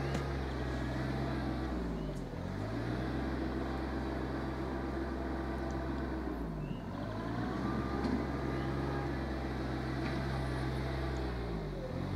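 Rural King RK24 subcompact tractor's diesel engine running under work. Its speed dips briefly and recovers three times, as it does when the engine takes load.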